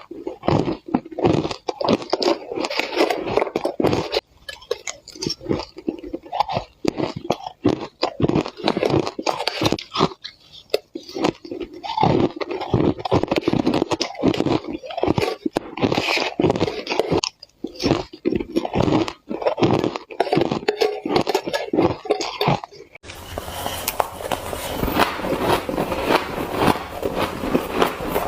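Close-miked biting and chewing of spoonfuls of shaved ice: dense, rapid crunching and cracking of the ice between the teeth. About 23 seconds in, the crunch turns brighter and finer, a crackly hiss of powdery ice.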